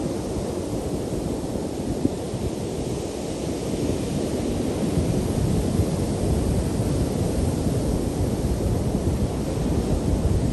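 Ocean surf breaking and washing up a sandy beach in a steady rush, with wind buffeting the microphone as a low rumble underneath.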